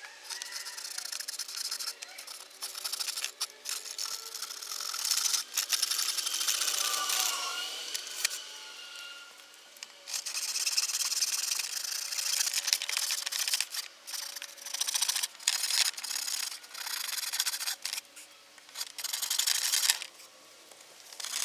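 Handsaw cutting through wood in repeated rasping strokes, stopping and restarting in short runs.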